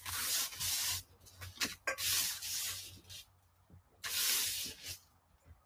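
A gloved hand brushing and rubbing across parchment paper and loose bath bomb powder, in about four hissing strokes, each under a second.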